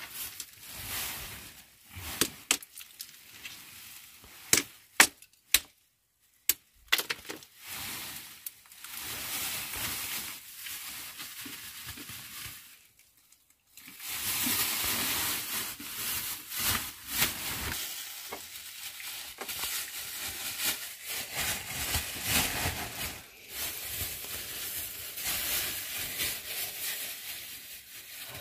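Clear plastic bag crinkling and rustling as hands rummage through it, with a few sharp crackles in the first several seconds.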